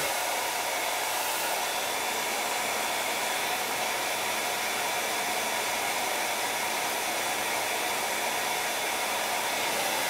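ghd Air Professional hair dryer running steadily at its first fan speed: an even rush of blown air from the blower motor, with a faint steady high whine.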